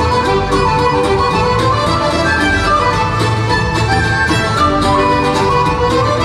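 Live Celtic folk band playing a Shetland fiddle tune at dance tempo, the fiddle carrying a quick melody over accordion, guitars and bass.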